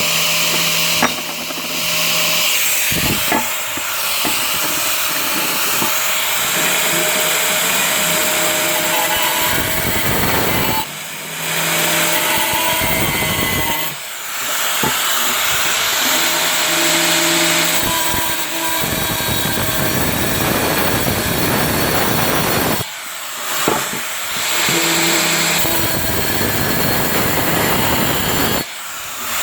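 Makita angle grinder with a diamond blade cutting and grinding a round hole in ceramic tile: a steady, loud grinding hiss over the motor's hum, broken off briefly a few times.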